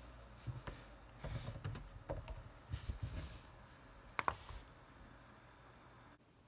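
Laptop keyboard keys typed in short irregular runs, with a sharper pair of taps about four seconds in. The typing then stops.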